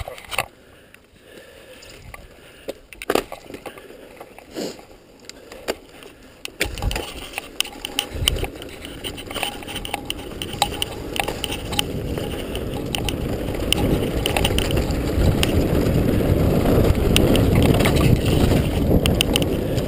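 Mountain bike riding down a dirt singletrack: sharp knocks and rattles of the bike over bumps, then tyre noise on the dirt and wind rush on the camera microphone growing steadily louder from about a third of the way in as the descent speeds up.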